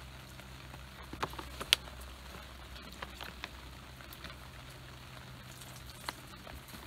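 Scattered light clicks and scrapes of a plastic spork scooping rehydrated biscuits and gravy out of a freeze-dried meal pouch, with the sharpest click just under two seconds in.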